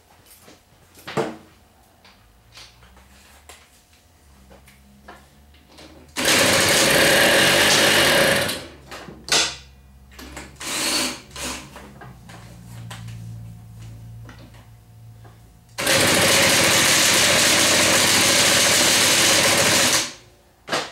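An old moped's small two-stroke engine on a cold start: it runs low and uneven, is revved hard twice for a few seconds each time, and drops off near the end, apparently starved of fuel.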